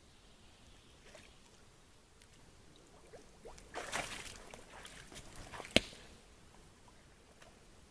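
Red deer stag wading through a shallow muddy pool: water sloshing and splashing around its legs for a couple of seconds, loudest about four seconds in. A single sharp knock comes near the end of the splashing.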